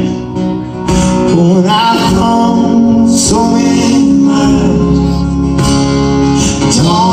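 Live acoustic band playing, led by strummed acoustic guitar, in an instrumental stretch between sung lines. The music dips briefly in loudness just after the start, then comes back in full about a second in.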